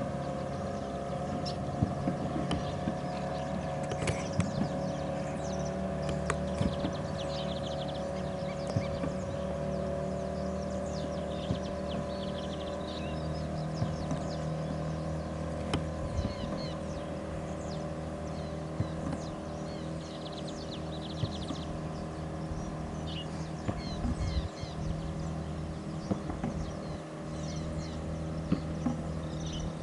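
Motorboat engine running steadily, the net fishermen's boat driving fish toward their nets. Small birds chirp over it, and there are a few sharp knocks.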